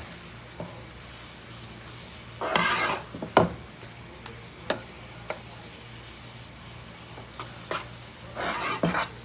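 A cooking spoon stirring and scraping thick besan-and-egg halwa in a pan while it is roasted. Scattered short clicks of the spoon against the pan, with two longer scraping strokes, one about two and a half seconds in and one near the end.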